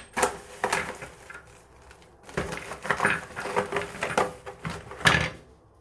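Metal faucet stem removal socket tools clinking and knocking against each other as they are handled, a string of irregular clacks with a short lull a second or so in.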